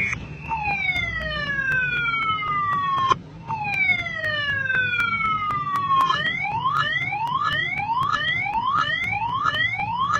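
Motorcycle anti-theft alarm siren cycling through its tones: two long falling wails, then about halfway through it switches to a fast repeated rising whoop.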